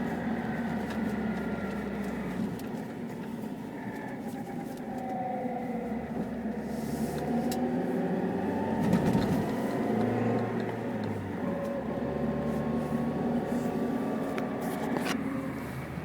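Chevrolet Niva on the move, its running noise carrying a howl and a thin high whistle, with several whining tones that slide up and down in pitch as the speed changes; it grows loudest about nine seconds in.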